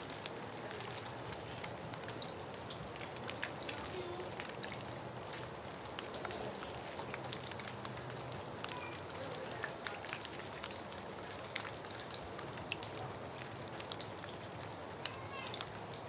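Rain falling on a puddle over concrete: a steady hiss of rain with many small ticks from single drops landing.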